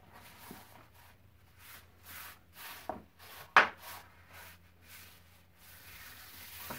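Hands sliding over and pressing down a large sheet of heavy 140 lb watercolour paper to crease a fold, the paper rustling and swishing in short strokes. About three and a half seconds in there is one sharp click.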